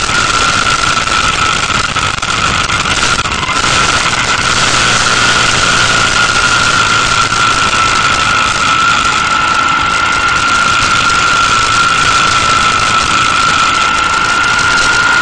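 Riding a motorcycle at a steady road speed, heard from the bike: loud wind rush over the camera with a steady high whistle, and the engine running underneath.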